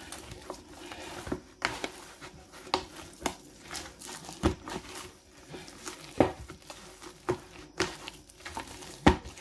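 Hand kneading and squeezing crumbly flour dough in a bowl: soft irregular squishing and crumbling, with a few sharper knocks against the bowl. A faint steady hum runs underneath.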